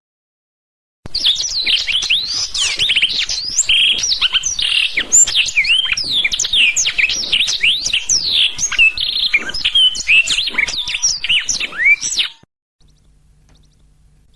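Blackthroat (black-throated canary) singing a long, unbroken, rapid song of varied high chirps, sweeps and trills, starting about a second in and cutting off abruptly near the end.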